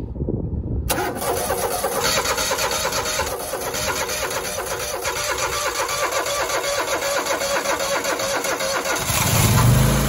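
Grasshopper zero-turn mower engine cranking on its electric starter for several seconds, choked, with a dry carburetor after a fuel pump replacement. It cranks on a battery that is barely strong enough, then catches and starts running about nine seconds in.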